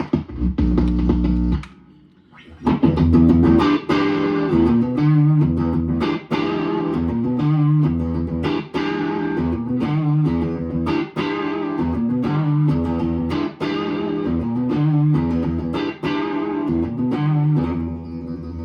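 Electric guitar riff on a PRS guitar fitted with its new P90-style pickups, played through an amp. It opens with a held chord, breaks briefly about two seconds in, then runs a repeating riff of low notes.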